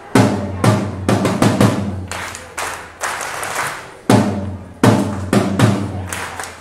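Marching snare drum played solo with sticks: clusters of sharp, loud accented hits with quieter strokes between, each hit ringing out and decaying in a reverberant room.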